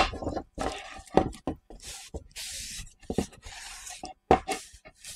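Cloth wiping and rubbing a wooden galley cupboard door being cleaned with sugar soap, in short hissy strokes. The wooden door knocks against the slatted teak table, sharply right at the start and with lighter knocks and clatters as it is turned and moved.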